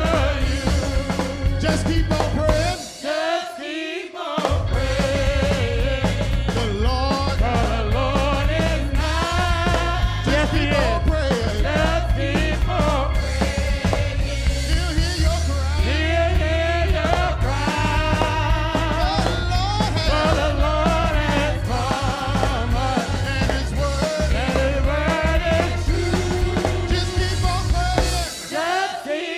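Live gospel song with voices singing over a drum kit and a heavy bass line. The low end drops out for about a second and a half some three seconds in, and again briefly near the end.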